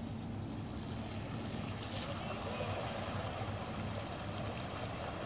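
Bicycle tyres rushing through shallow flood water, the splashing growing from about halfway through as the rider comes closer, over a steady low hum.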